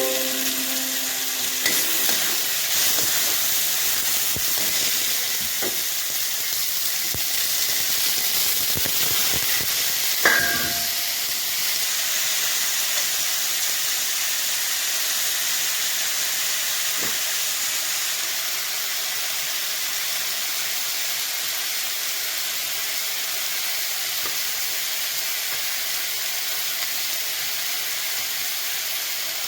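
Steady sizzling hiss of food frying in a pan, with one sharp metallic clank that rings briefly about ten seconds in.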